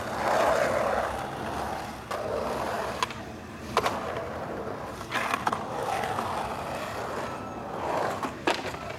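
Skateboard wheels rolling over a concrete bowl, the rolling noise swelling and fading as the board carves. Several sharp clacks of the board cut through it, about two, three and four seconds in, a cluster around five seconds, and two close together near the end.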